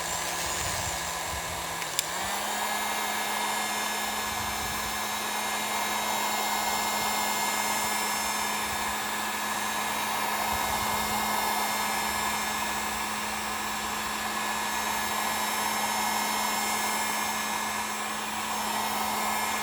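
Heat gun blowing steadily while heat-shrink tubing is shrunk onto a typewriter platen, over the steady hum of a drill slowly turning the platen. About two seconds in there is a click, and the hum steps up a little in pitch and stays there.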